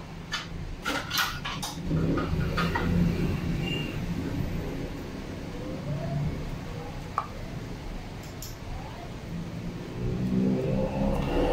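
A kitchen ladle and dishes clinking and knocking several times in the first two seconds. Then a plastic ladle scoops and stirs in a stainless steel pot of boiling soup, with a couple more light knocks against the pot, over a steady low rumble.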